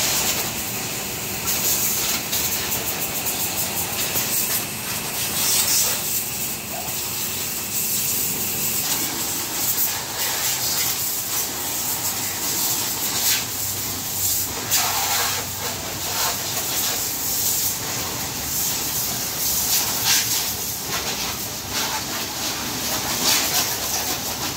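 High-pressure water jet hissing steadily as it sprays a motorcycle, the water spattering unevenly off the bodywork as the jet moves.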